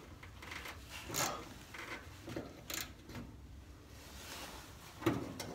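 Faint scraping and a few irregular clicks of a hand ratchet working the nut off a factory bump stop under a pickup.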